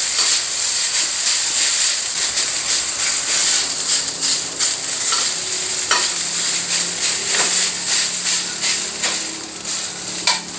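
Rice sizzling in hot oil in a stainless steel wok while a metal spatula stirs and turns it, scraping and tapping the pan now and then. The wok is very hot, so the rice fries without sticking.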